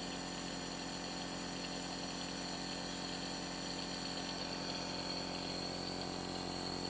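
Compressor nebulizer running with a steady, even motor hum and hiss as it turns the medicine into mist.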